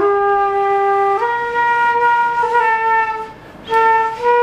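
A flute-like wind instrument playing a slow song melody in long held notes that step upward, with a short break near the end followed by two shorter notes.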